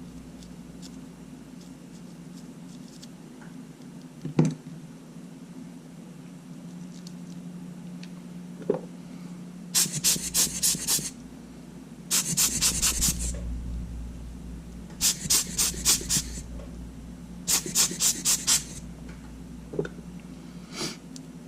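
Four short runs of quick, scratchy clicks, several a second, from hands working at a Sony A7's sand-clogged control buttons to free them of grit. Two single knocks come before them.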